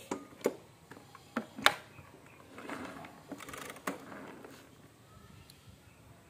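A used Panasonic rice cooker and its inner pot being handled: a series of sharp knocks and clicks, the loudest about one and a half seconds in, with a scraping, rustling stretch in the middle.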